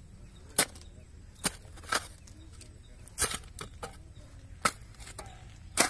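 Mammoty (short-handled hoe) blade chopping into loose soil while digging a small pit, about six sharp strikes at uneven intervals.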